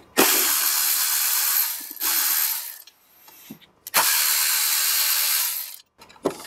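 Cordless electric ratchet running in three bursts, spinning out the bolts of a snowmobile's primary clutch cover; the first and last runs last about a second and a half each, the middle one is shorter.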